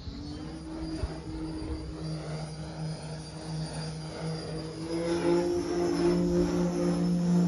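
StinGR electric motor and 28x13 Falcon propeller of a 104-inch Extreme Flight Laser RC plane in flight: a steady propeller drone that grows much louder about five seconds in as the plane comes close.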